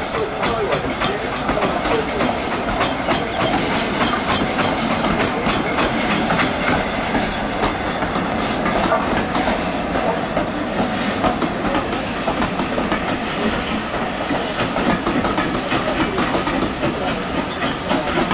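A train's coaches rolling past, steel wheels clicking over the rail joints in a steady run of clicks, over a continuous rumble and hiss.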